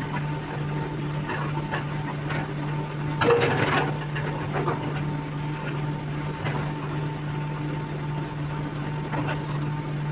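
Excavator engine running with a steady low hum, with a loud clatter a little over three seconds in and a few lighter knocks.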